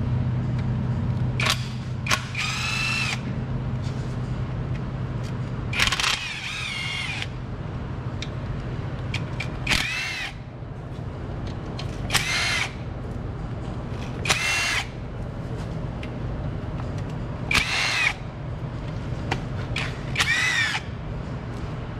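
Cordless power tool spinning in about eight short bursts, each winding up and back down, as it backs the 10 mm bolts out of the lower oil pan. A steady low hum runs underneath for the first six seconds.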